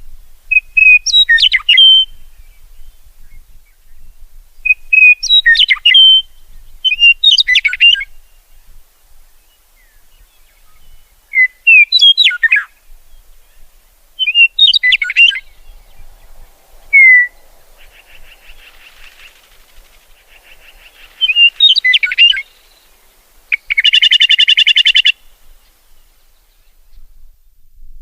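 A songbird singing short, quick, warbled phrases every two to three seconds. A loud, harsh buzzy call comes about three-quarters of the way through.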